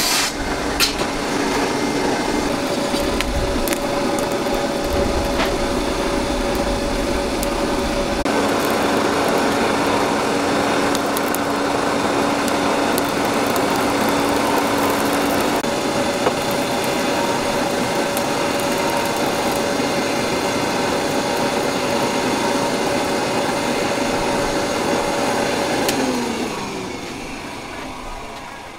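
Forge blower fan running steadily with a whine, blowing air through the coal forge fire while an axe head heats. Near the end it is switched off and its whine falls away as it spins down.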